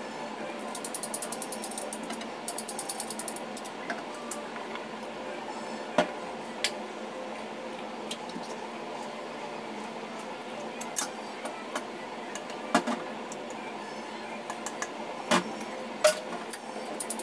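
Can opener working around a metal tuna can: bursts of rapid ratcheting clicks in the first few seconds. Then come scattered sharp knocks and clinks, the loudest near the end.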